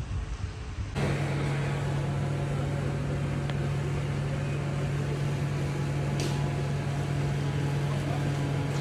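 Wind buffeting the microphone, then from about a second in a motor running steadily, a constant-pitch hum that does not change.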